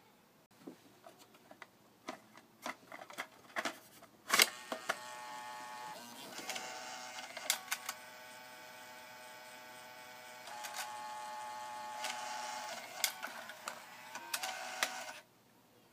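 Sony 10-disc CD changer mechanism running through a cycle. A few small clicks come first, then a sharper clack about four seconds in. After that a small motor turns the gear train with a steady whine that shifts pitch a few times, with clicks along the way, and it stops shortly before the end.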